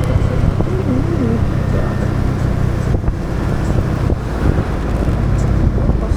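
Motorbike engine running steadily under way, mixed with road and traffic noise.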